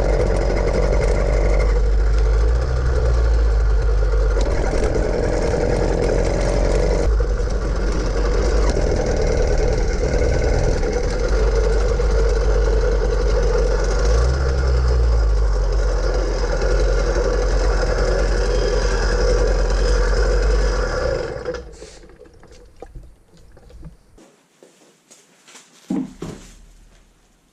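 Gas-powered bicycle's small two-stroke engine running steadily under way, with wind rumbling on the microphone. It cuts off about 21 seconds in, leaving a few faint knocks.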